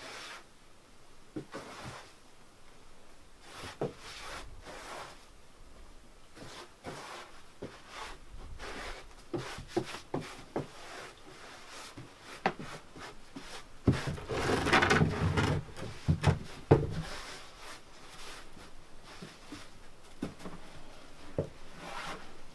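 Dried, crumbled nettle leaves being scooped by gloved hands from a plastic tub into cloth bags: dry rustling and crackling with scattered knocks and scrapes against the tub, and a louder stretch of handling about two-thirds of the way through.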